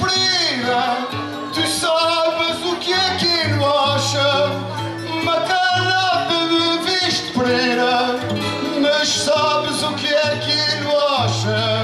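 Instrumental interlude of a desgarrada: plucked string instruments play a steady folk melody over a repeating bass note between the singers' improvised verses.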